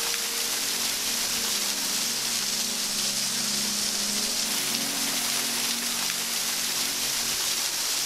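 Small waterfall splashing down a rock face: a steady, even rush of falling water.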